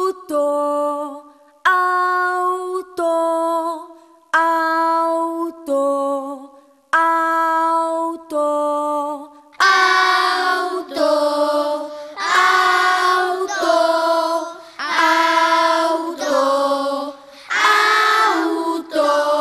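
Children singing unaccompanied, each sung syllable held about a second with short breaks between. About ten seconds in the singing becomes louder and fuller.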